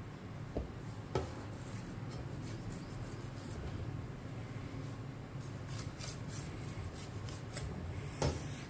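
Knife blade scoring rolled dhokli dough, in short scraping strokes against the plate underneath, with a few sharp taps. A steady low hum runs underneath.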